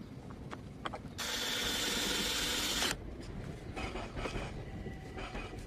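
Mechanical handling noises while working on a toy ride-on bike: a few sharp clicks, then a steady rasping noise lasting about a second and a half that starts and stops abruptly, followed by softer scraping sounds.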